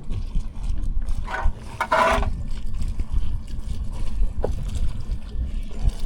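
Water lapping and trickling against a small boat with a steady low wind rumble on the microphone. A short louder sound stands out about a second and a half in.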